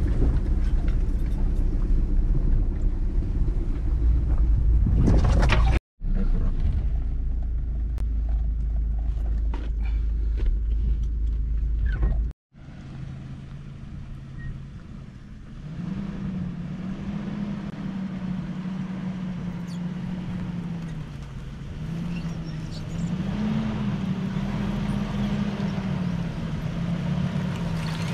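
Nissan pickup driving over a rough bush track: a loud low rumble of engine and road noise inside the cab, broken by two abrupt cuts, then the engine heard from outside, its note rising and falling as the truck crawls through the brush.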